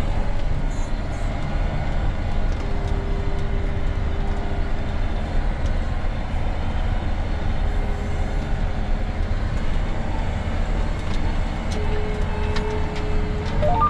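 John Deere 9R 490 articulated tractor's engine running steadily, heard from inside the cab while it pulls a Väderstad TopDown 600 cultivator. A steady low drone, with a faint whine that comes and goes.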